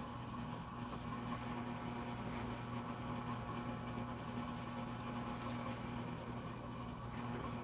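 Steady low hum with a faint hiss underneath: background room noise, with no distinct events.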